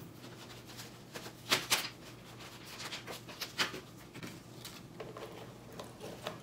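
Paper banknotes being counted by hand, bills peeled off a stack and laid down one by one on a stone countertop: short, irregular paper rustles and snaps, the loudest pair about a second and a half in.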